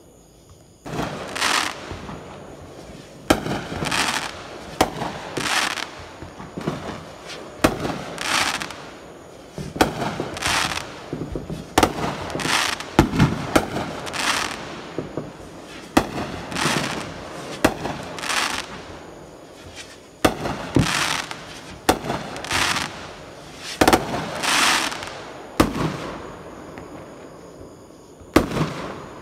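Aerial fireworks bursting overhead: a run of sharp bangs, with a short hissing crackle every second or two.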